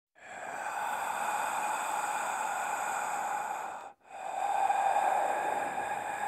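Noise intro effect opening a progressive thrash metal album: a steady rushing noise in two long swells. The first holds for nearly four seconds and cuts off abruptly, and the second starts again at once and builds.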